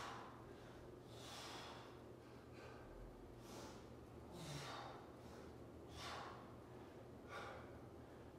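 A man breathing hard through band push-ups, with a forceful breath roughly every second or so, in time with the reps.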